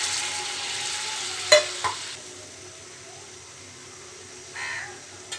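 Water poured into a hot kadai of fried potatoes and spices, hissing and sizzling as it hits the pan: the water for the curry's gravy going in. The pour ends about one and a half seconds in with two sharp knocks, leaving a quieter steady hiss from the pan.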